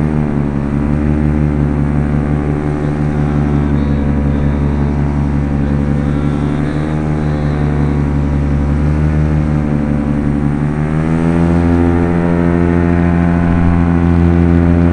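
PAP paramotor's Top 80 single-cylinder two-stroke engine and propeller running steadily in low-level flight. About eleven seconds in the note rises and gets a little louder as the throttle is opened.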